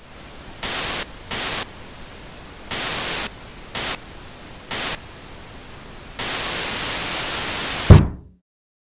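Old television's static hiss, swelling into louder bursts of static six times, the last one held for nearly two seconds. It ends in a single heavy thump, a fist banging the TV set, which cuts the static off.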